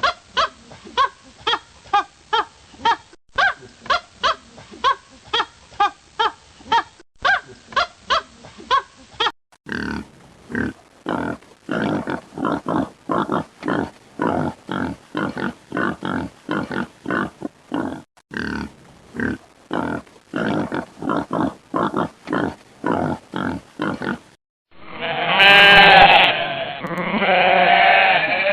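A run of animal sound clips one after another: short pitched calls repeated about twice a second for the first nine seconds, then a longer stretch of rapid short calls, and near the end two long drawn-out calls.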